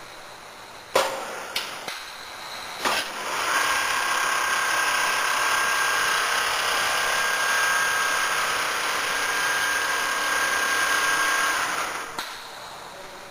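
ABM double-needle quilting machine: a few sharp clunks, then from about three seconds in a steady mechanical whir with a high whine as the sewing head runs, which drops away about a second before the end.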